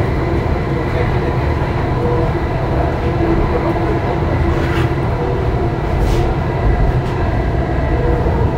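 Delhi Metro train running, heard from inside the car: a steady low rumble of wheels on the track with a faint steady whine, and a couple of light clicks about five and six seconds in.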